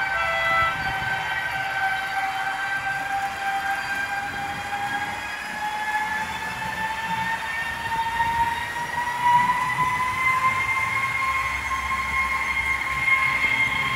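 Onboard sound system of a customized Mehano TGV Duplex model train playing an electric traction-motor whine that rises slowly and steadily in pitch, with a brief short beep at the start. The low rumble of the model running on the track lies underneath.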